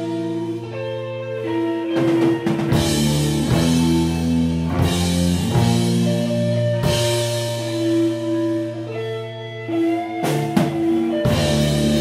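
A live rock band playing: electric guitars and a bass guitar hold long notes over a drum kit, with drum and cymbal hits every second or two.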